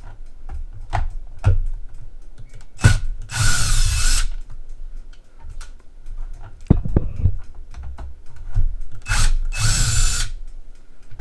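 Cordless drill backing out the Phillips screws that hold a plastic socket case shut, in two short runs: one about three seconds in lasting over a second, another about nine seconds in. Light clicks and knocks of handling come between them.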